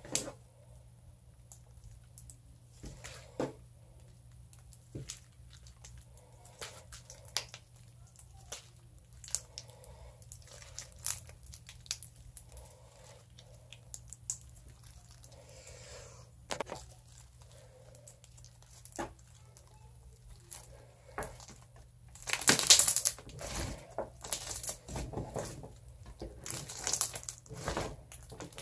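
Hands kneading, squeezing and stretching glittery slime mixed with colourful beads, making scattered small clicks and pops. They become a louder, denser run of clicks and pops over the last six seconds or so.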